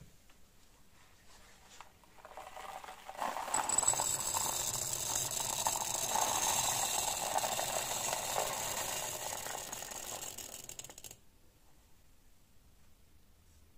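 Hundreds of small steel bearing balls poured from a cardboard box into a crucible, a dense metallic clattering and rattling that builds up about two seconds in and stops abruptly about three seconds before the end. The crucible is being charged with bearing balls to be melted into a wootz steel ingot.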